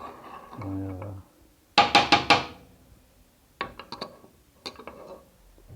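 Knocks and clatter of a Rok manual coffee grinder's parts being handled: a quick cluster of loud knocks about two seconds in, then a few lighter clicks.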